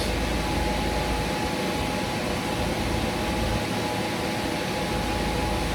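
Steady mechanical hum and hiss with a faint constant whine, like a running fan or motor, ending in a sharp click.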